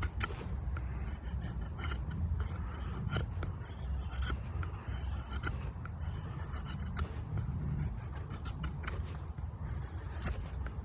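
Victorinox Venture knife blade making fine carving cuts in a green hazel stick: many short, irregular shaving and scraping strokes, with a low rumble underneath.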